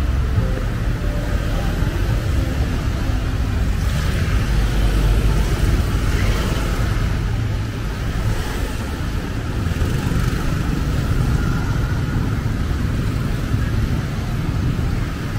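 Street traffic on a wet road: cars and motorbikes passing, with the hiss of tyres on wet asphalt over a steady low rumble.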